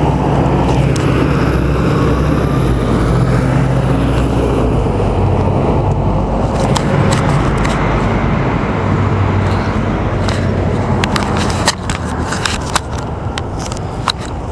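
Road traffic on a city street: cars' engines and tyres running close by in a steady wash of noise. It eases a little near the end, where a few light clicks come through.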